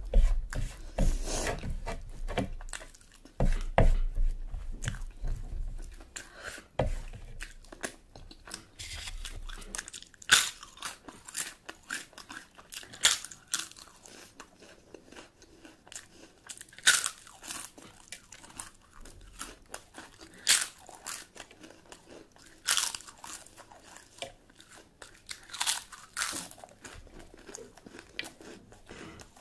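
A person chewing and biting food close to the microphone, with sharp crunches every few seconds in the second half.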